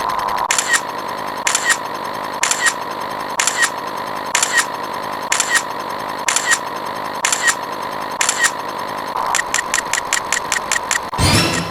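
Synthetic sound effect: a steady high tone with a sharp click about once a second. The clicks come faster about nine seconds in, and a loud noisy burst follows near the end.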